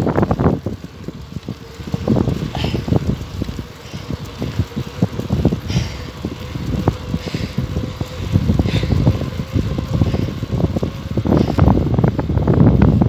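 Wind buffeting the microphone of a phone carried on a moving bicycle: a low, gusty rumble that swells near the end.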